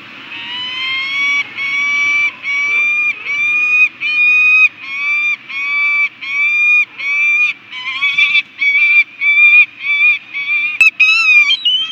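Peregrine falcons calling: a long series of harsh, repeated call notes, each about half a second, quickening from about one a second to about two a second, with a sharp click and a higher, harsher call near the end.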